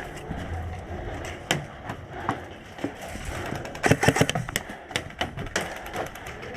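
A run of sharp clicks and knocks, scattered at first, then a quick cluster of them about four seconds in.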